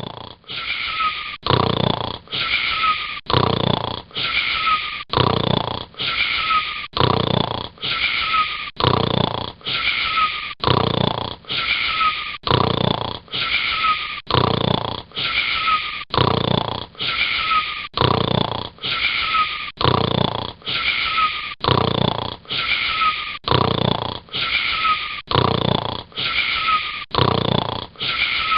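Steady, rhythmic snoring of a sleeper, about one breath a second, each breath carrying a short whistling wheeze.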